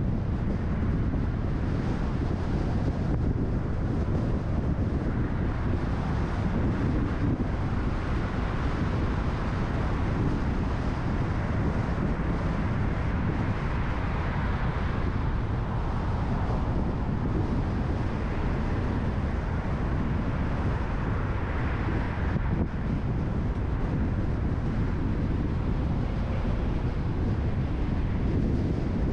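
Steady road and wind noise from a car driving, rising briefly twice.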